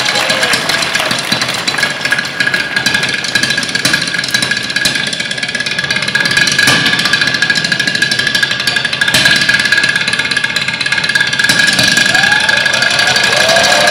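Drumline players beating drumsticks fast on chairs and stools in a dense, rapid stick pattern, with a steady high tone running under it from about two seconds in.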